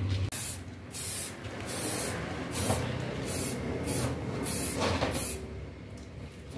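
Aerosol spray-paint can hissing in a series of short bursts, each under half a second and coming roughly every half second to second, as paint is sprayed through a paper stencil.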